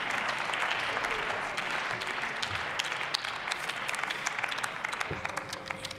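Applause in a parliament chamber, many hands clapping, dying away about five seconds in.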